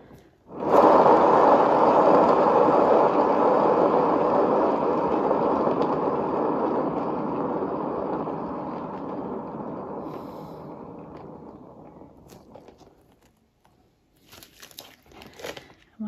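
Turntable spinning a painted panel: a loud rolling whir that starts suddenly about half a second in and fades as the spin slows, dying away after about eleven seconds.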